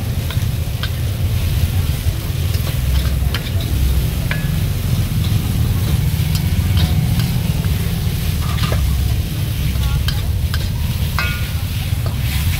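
A metal ladle scrapes and clinks against a steel wok as noodles with bean sprouts and chives are stir-fried, over a steady sizzle. A steady low rumble runs underneath.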